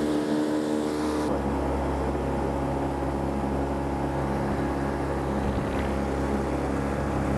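Mercury OptiMax two-stroke outboard motor running steadily at trolling speed, with the hiss of water and wake along the boat.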